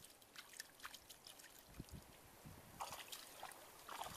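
Faint splashing and sloshing of shallow muddy water stirred by hands and bare feet wading, in short irregular splashes that grow busier near the end.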